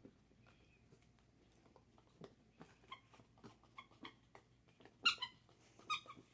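Squeaker in a plush watermelon dog toy squeaking in short squeaks as a small dog chews it, faint at first, with the two loudest squeaks near the end.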